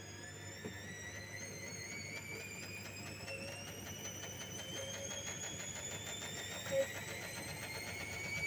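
Front-loading washing machine's drum motor whining as it slowly speeds up in a short spin with an unbalanced load, the pitch rising steadily. A brief sharp blip about seven seconds in.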